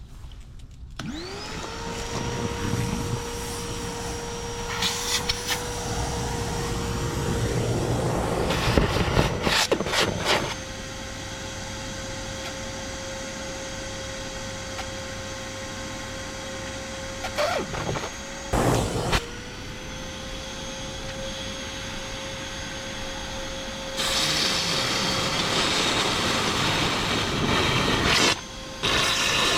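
A small electric motor spins up about a second in and runs at a steady pitch, with a few loud bursts of noise along the way. It stops briefly about two-thirds of the way through, spins up again, and gets noisier near the end.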